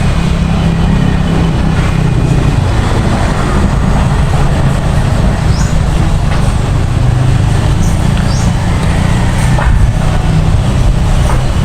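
Steady low drone of a running engine, with a few short high chirps about halfway through.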